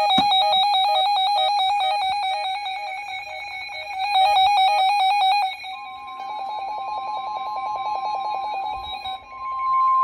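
Emergency Alert System attention signal over the radio: a harsh, rapidly warbling alarm tone. About halfway through a steady, slightly higher single tone joins it, and near the end that steady tone carries on alone.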